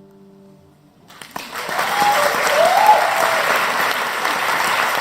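The last held chord of a live song fades out, and about a second in the audience breaks into steady applause, with a short cheer among the clapping.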